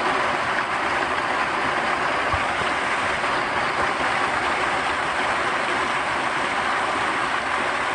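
Heavy rain streaming off the edge of a tiled roof and splashing below: a steady, even rushing hiss.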